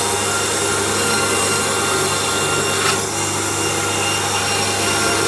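An electric meat bandsaw runs steadily with a low motor hum while its blade cuts through a slab of bone-in beef ribs.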